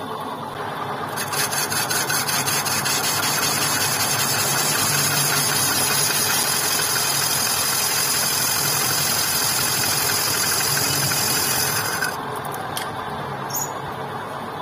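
Lathe turning out the inside of a motorcycle hub's brake drum: a cutting tool scrapes the spinning drum's braking surface to resurface it. The cut builds up about a second in, runs loud and steady, then stops abruptly about twelve seconds in, leaving the lathe running more quietly.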